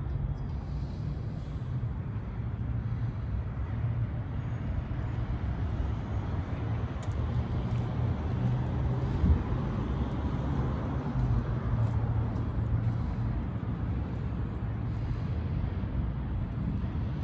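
A motor running with a steady low hum, over outdoor background noise.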